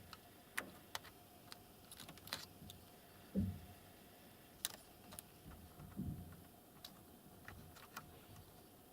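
Faint, scattered small clicks and a few soft knocks of hands handling the laptop's keyboard ribbon cable and plastic chassis while the keyboard connector is fitted.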